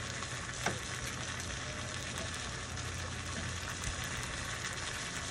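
Chicken curry mixture sizzling steadily in a frying pan over a low hum, with one short click under a second in.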